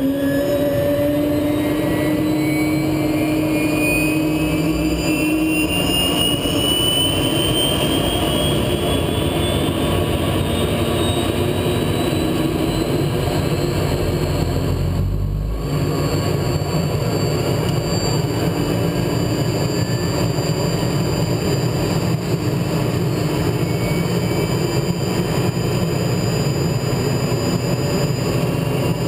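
SA 330 Puma helicopter's Turbomeca Turmo turboshaft engine spooling up during start, heard from inside the cockpit. A loud turbine whine rises steadily in pitch over the first several seconds and then holds, over a low rumble, with a brief dip in level about halfway.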